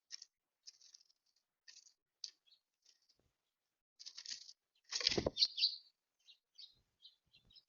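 Small songbirds giving short, high chirps again and again at a seed feeder. About five seconds in comes one louder, rustling burst lasting about half a second.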